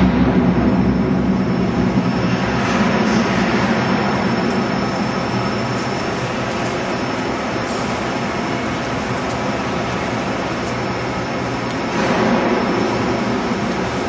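Octagonal drum honeycomb paper machine running: a steady mechanical hum with several steady tones, swelling a little at the start and again about twelve seconds in.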